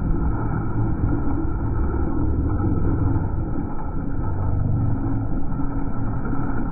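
Low, steady rumble of a boat's engine and the water around the hull, dull with no high sounds.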